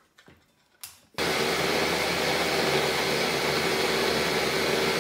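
Small electric blender starting up suddenly about a second in and then running steadily at one speed, blending grated potatoes and eggs into pancake batter.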